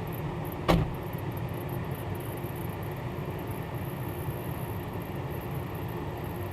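A steady low outdoor rumble, with a single short, sharp knock about a second in.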